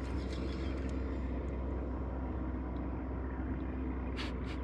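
Boat motor running with a steady low drone, with a few light clicks near the end.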